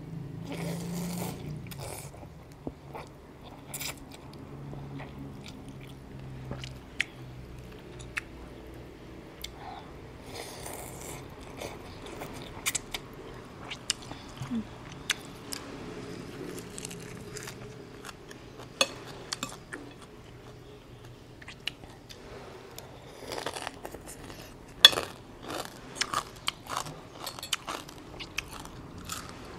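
A person eating chicken noodle soup close to the microphone: chewing, with wet mouth clicks and smacks at an irregular pace, busier in the last few seconds.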